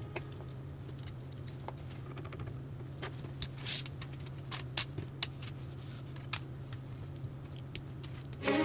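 Plastic LEGO bricks clicking and rattling as they are handled and pressed together: a dozen or so scattered sharp clicks over a faint steady low hum.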